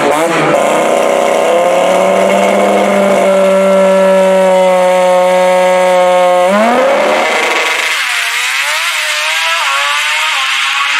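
Drag race car's engine held at a steady high rev on the starting line, then revving sharply upward as the car launches about six and a half seconds in. After that it revs up and drops back repeatedly through its gear shifts as the car pulls away down the track, a little quieter.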